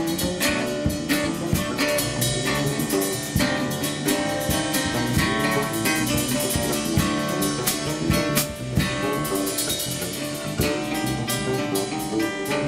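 Live acoustic trio improvisation: a guitarrón plucking bass notes, a drum kit with cymbals keeping a steady beat, and a mandocello playing plucked notes.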